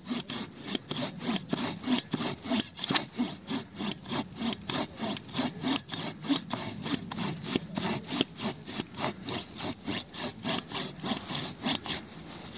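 Silky folding pull-stroke hand saw cutting through a thick log, rasping in quick, even strokes about three a second.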